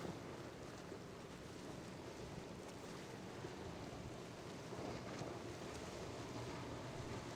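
Steady hum of boat engines in the inlet, mixed with wind on the microphone and the wash of waves.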